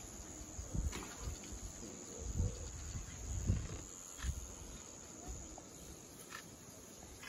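Steady high-pitched drone of insects, with irregular low thumps and a few faint clicks about one, four and six seconds in.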